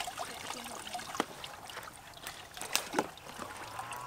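Water trickling and sloshing as it is poured into a steel bowl of grated coconut and worked through by hand. A few sharp clicks sound through it.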